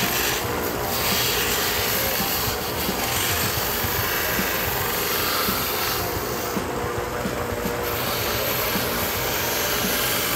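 Small belt and disc combination sander running steadily while the edges of a glued stack of leather are pressed against its narrow sanding belt, giving a continuous abrasive rubbing over the motor's steady hum.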